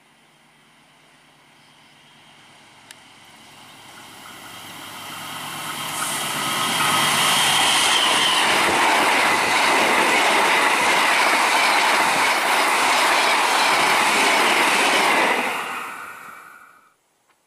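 Diesel-hauled passenger train approaching at speed, growing steadily louder, then the loud rush of its coaches' wheels on the rails as they pass close by. The sound falls away and cuts off near the end.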